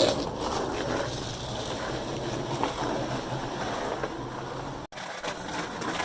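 Steady rushing noise of wind and rolling rumble while on the move, with a sudden break about five seconds in.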